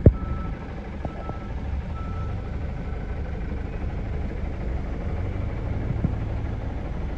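Van engine idling, heard from inside the cab as a steady low rumble, with a sharp click right at the start and a few faint ticks while the windscreen wipers sweep.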